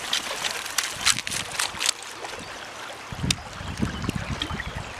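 Water spattering and splashing for about two seconds as a wet dog shakes itself off in a shallow river. Then the river ripples steadily over gravel, with wind rumbling on the microphone from about three seconds in.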